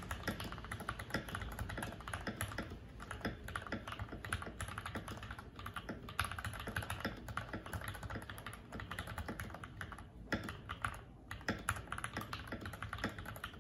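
Fast typing on a mechanical keyboard fitted with linear switches: a dense, irregular patter of keystrokes and key bottom-outs, with brief pauses about ten and eleven seconds in.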